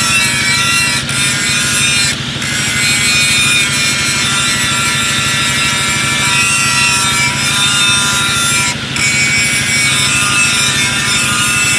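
Angle grinder with a flap disc grinding a steel knife blank cut from a tractor disc: a steady high motor whine over a loud grinding hiss. The grinding dips briefly twice, about two seconds and about nine seconds in.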